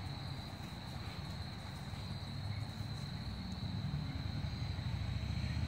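Steady, high-pitched insect chorus over a low background rumble.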